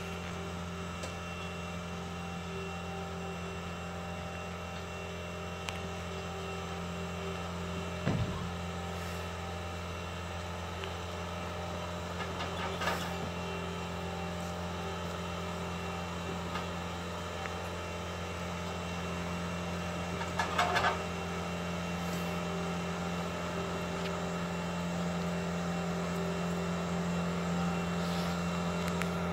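Vehicle engine idling with a steady, low hum, getting a little louder toward the end. A few brief knocks and rattles, the loudest cluster about twenty seconds in.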